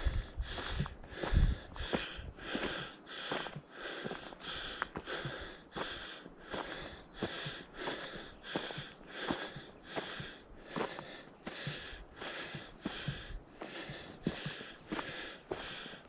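A hiker breathing hard and rhythmically while climbing a steep trail, about three breath sounds every two seconds, with the sharp ticks of footsteps on the trail between them.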